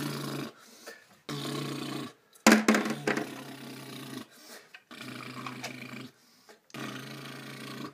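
A person's voice imitating an excavator engine, a growling rumble made with the mouth, in a string of bursts of one to two seconds each. A sharp knock, the loudest sound, comes about two and a half seconds in.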